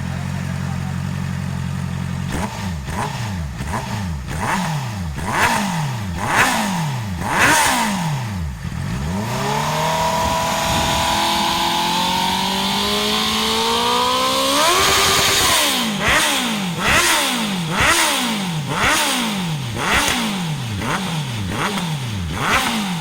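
Honda CB650F inline-four engine through an aftermarket sport exhaust, idling steadily, then revved in a string of quick throttle blips. About nine seconds in it is held on a long slow climb in revs that ends in a sharp rise and drop, followed by more quick blips.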